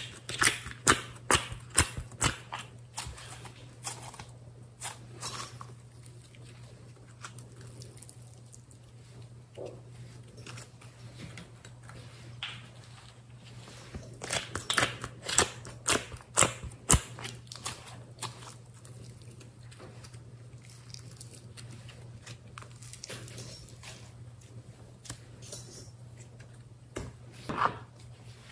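Thick slime being pulled and pressed out of a plastic compartment tray, giving sharp sticky clicks and crackles in clusters near the start, about halfway through and near the end, over a faint steady low hum.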